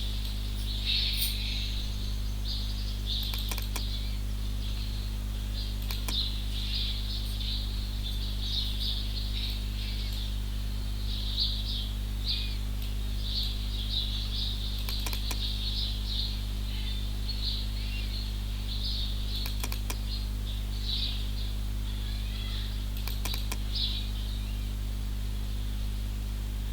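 Small birds chirping continuously in quick irregular bursts over a steady low electrical hum, with a few sharp clicks scattered through.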